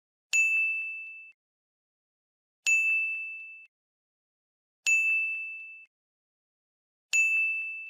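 Four identical bright ding sound effects, about two seconds apart. Each starts with a sharp click and rings out on one high tone for about a second. They are the click chimes of an animated like-and-subscribe button sequence.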